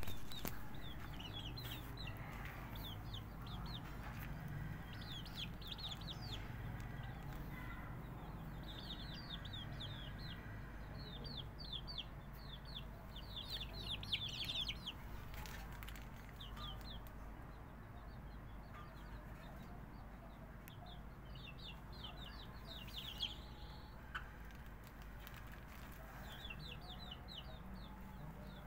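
Young Aseel chicks peeping: bouts of quick, high cheeps come and go every few seconds, over a steady low hum.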